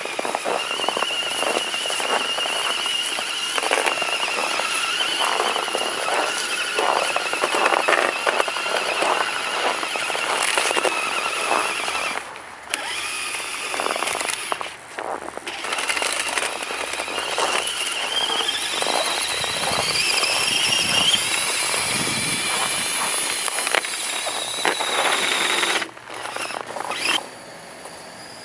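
Electric motor and gear drive of an Axial SCX10 RC crawler whining as it drives, with the plow blade scraping and crackling through snow. The whine climbs in pitch about two-thirds through, the sound breaks off briefly twice, and it stops near the end.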